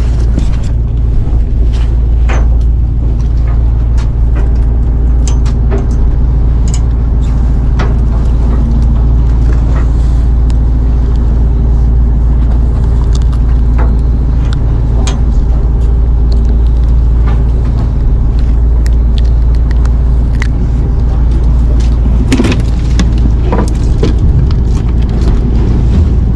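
A fishing boat's engine running steadily: a low, unchanging drone with a fixed pitch. Scattered small clicks and knocks sound over it.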